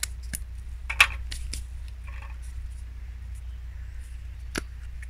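Small sharp clicks and taps from handling a little spice kit's containers while seasoning batter: several close together in the first second and a half, the loudest about a second in, and one more sharp click near the end.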